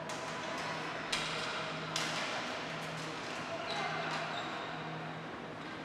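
Ball hockey play: sharp cracks of sticks and the plastic ball, the two loudest about one and two seconds in, ringing in the rink over its background noise and faint voices.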